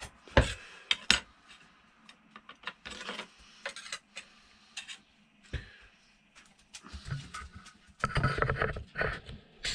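Steel knife blank knocking and clicking against the jaws of a bench vise as it is clamped and bent by hand to straighten a twist. Two sharp knocks come about half a second and a second in, followed by scattered lighter clicks and handling noise, which grow busier near the end.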